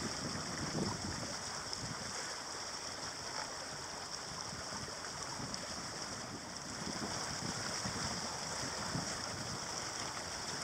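Steady rush of water along a sailboat's hull and wake as it sails at speed, with no engine running, and some wind on the microphone.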